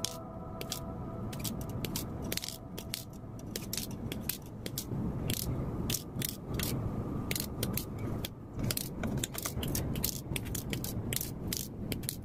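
Side cutters snipping small parts from a thin etched metal sheet: many sharp, irregular clicks, coming faster after the first few seconds, over the low rustle of the sheet being handled.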